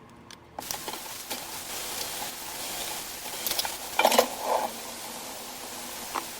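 Covered pot of rice, radish and chickpeas sizzling and simmering on low heat, a steady crackling hiss with scattered ticks. There is a short, louder clatter about four seconds in.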